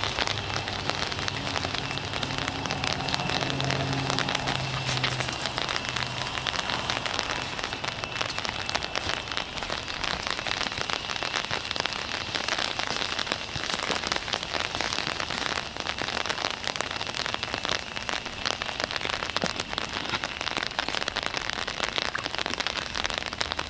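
Steady rain pattering, a dense hiss of fine random drop ticks. A low hum sounds underneath for the first several seconds and then fades out.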